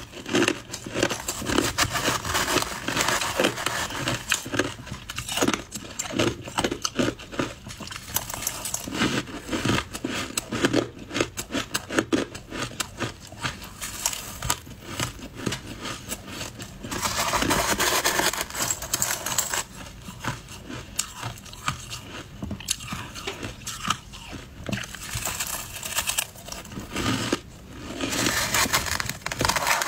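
Close-miked crunching of shaved ice being chewed: a dense run of crisp crunches and crackles, with thicker, steadier stretches about 17 seconds in and again near the end.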